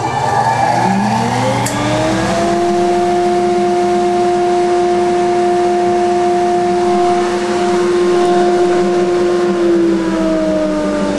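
A Craftsman dust collector's blower motor and impeller switched on by remote, spinning up with a rising whine over about two seconds, then running at a steady pitch, drawing air through a homemade trash-can separator. The pitch dips slightly near the end.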